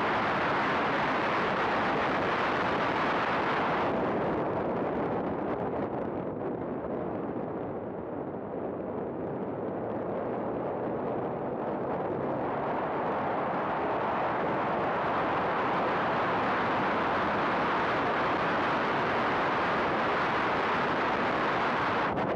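Race car running at speed on track, heard through an onboard camera microphone as a dense rush of engine, tyre and wind noise. The sound dulls for several seconds about a third of the way in, then brightens again.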